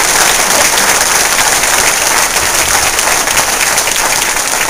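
Audience applauding: many people clapping at once in a dense, steady, loud patter.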